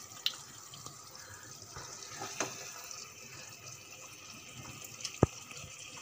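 A spoon serving cooked potato and capsicum curry into a ceramic dish, with a few light clicks of the spoon against the dish, the sharpest about five seconds in, over a faint steady hiss.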